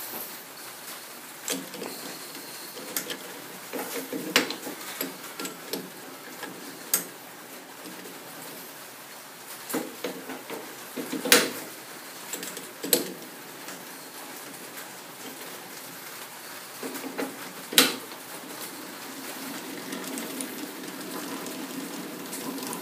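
Metal clanks and clicks of a lathe chuck being changed by hand, a steel chuck key turning in the chuck and steel parts knocking together, with about five sharper knocks spread through.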